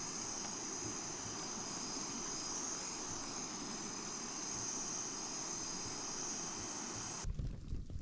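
A steady, even hiss, brighter than low, that cuts off suddenly near the end.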